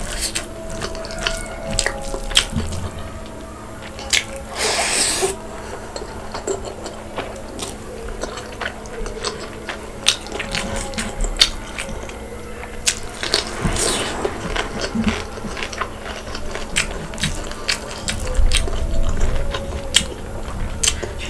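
Close-up wet chewing and mouth sounds of someone eating pork curry with rice, full of small clicks and smacks, with two short rushes of noise about 5 and 14 seconds in.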